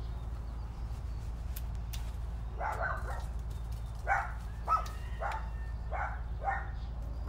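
A dog barking in a run of short barks, about two a second, starting about two and a half seconds in, over a steady low hum.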